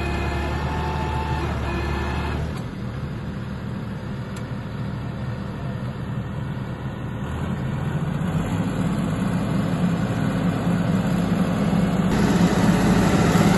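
Sanman 6000 tractor's diesel engine running steadily under load while it pulls a tine cultivator through the soil. It grows louder in the second half as the tractor comes closer.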